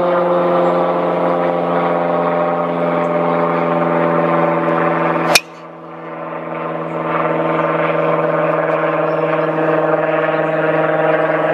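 A driver hitting a golf ball off the tee: one sharp crack about five seconds in. It sits over a loud, steady mechanical drone that dips right after the hit and swells back.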